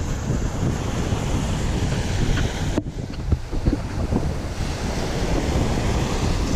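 Wind buffeting the camera microphone over small waves washing up on a sandy beach.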